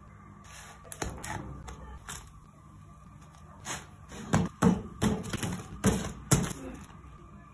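Batbout flatbreads being handled in a dry black frying pan, making light taps and knocks as they are turned and lifted out by hand. There are a few scattered taps early on and a quick run of about six sharper knocks in the second half.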